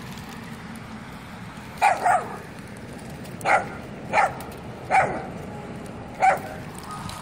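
A dog barking: six short single barks at uneven intervals, the first two close together.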